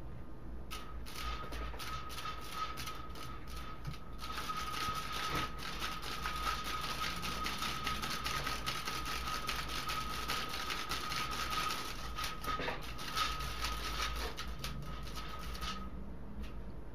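Slats of a venetian blind (jalousie) clattering as a cat bats and paws at them: quick light clicks, scattered for the first few seconds, then a dense rattling run from about four seconds in until near the end. A faint steady high whine sits underneath.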